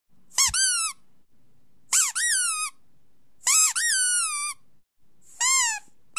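A high squeaky whining sound, four times about a second and a half apart. Each call rises and then falls in pitch.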